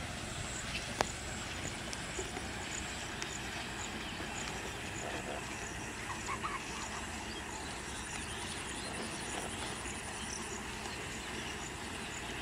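Steady outdoor background noise with faint high ticks and chirps, and one sharp click about a second in.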